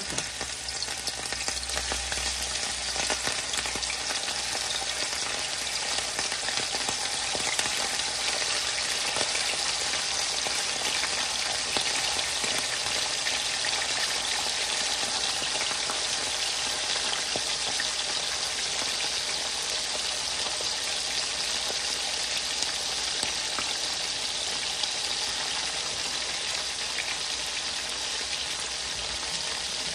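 Thin slices of salted beef frying in hot oil in a nonstick skillet: a steady sizzle with fine crackling.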